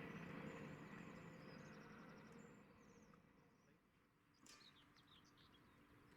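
Faint rumble of a train fading into the distance, with small birds chirping; a brief, louder flurry of chirps about four and a half seconds in.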